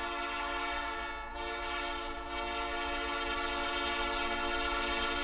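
Horn of a GE ES44AC-H diesel locomotive blowing one long, steady chord of several notes as the train approaches. Its tone thins briefly about a second in and again about two seconds in.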